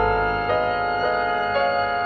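Instrumental contemporary jazz from an eight-piece band: sustained notes, with a new chord or note starting about twice a second.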